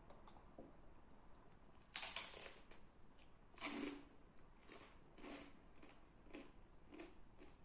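Someone biting into crispy naan pizza with two loud crunches, about two seconds in and again around three and a half seconds, then chewing steadily at about two chews a second.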